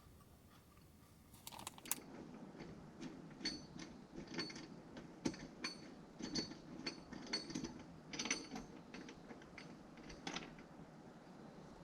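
Irregular mechanical clicks and metallic clinks of hand work on the concrete forms, starting about a second and a half in and going on in quick clusters, some with a short high ring.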